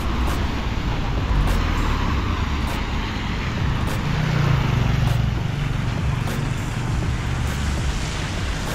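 Street traffic running steadily, with a vehicle engine passing close about four to six seconds in.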